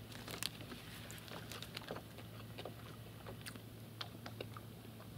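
A person chewing a mouthful of groat sausage close to the microphone, with small wet mouth clicks, mixed with light rustling of a paper napkin and a plastic food packet being handled.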